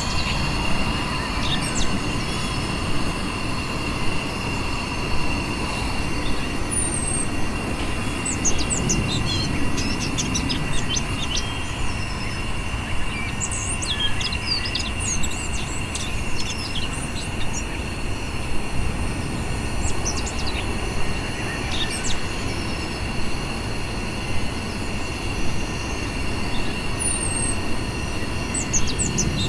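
Max Pump 2 air pump blowing air into an inflatable tube, running steadily with a rushing noise and a constant high whine. Short bird chirps come and go over it.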